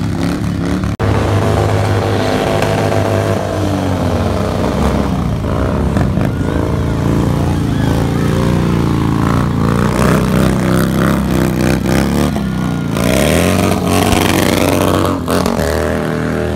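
Motorcycle engines revving hard during stunt riding, the pitch rising and falling again and again. There is a brief dropout about a second in.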